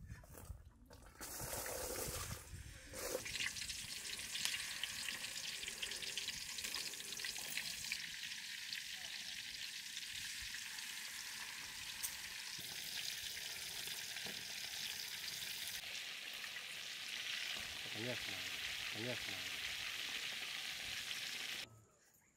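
Marinated whole fish shallow-frying in hot oil in a wide pan, a steady sizzle with dense crackling. It starts about two seconds in and cuts off abruptly near the end.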